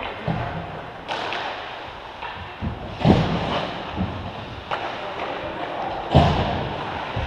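Irregular thumps and knocks from an ice hockey game echoing around the rink, the loudest about three seconds in and again about six seconds in, the kind of sound made by the puck, sticks and players hitting the boards.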